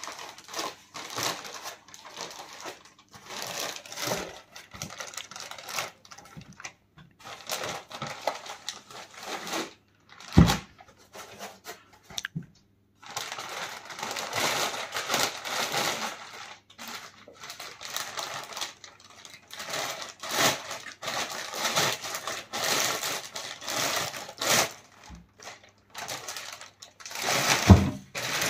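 Plastic packaging bag crinkling and rustling in irregular stretches as it is handled and pulled off a cutting plotter, with a dull thump about ten seconds in and another near the end.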